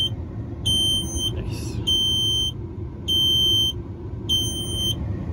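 Peterbilt 379 dash warning buzzer beeping steadily with the ignition on and the engine stopped: four high-pitched beeps about 1.2 s apart. A steady low rumble runs underneath.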